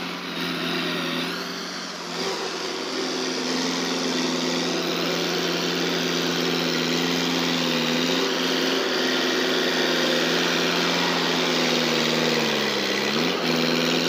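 Komatsu D50 crawler bulldozer's diesel engine running steadily as the blade pushes a pile of earth. Near the end its pitch sags briefly and then recovers.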